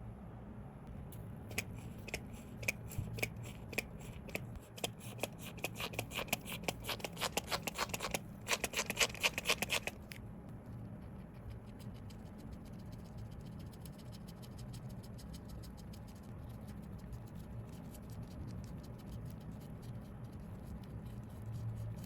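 Rapid small clicks and scratches of hand work on a replica Rolex wristwatch, growing denser and louder before stopping abruptly about ten seconds in, followed by faint scattered ticks.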